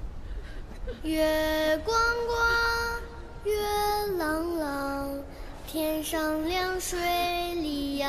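A solo high voice singing long held notes that slide from one pitch to the next, starting about a second in, with little accompaniment.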